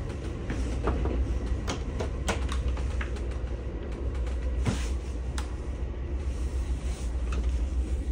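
Steady low rumble of a moving passenger train car, heard from inside, with scattered sharp clicks and knocks as a restroom door's latch is worked and the door swung open.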